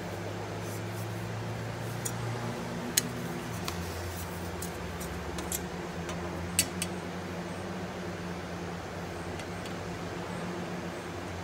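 Cordless drill running steadily as its bit bores into a car's rear quarter panel. Its hum drops a little in pitch a little under four seconds in, and a few sharp ticks sound over it.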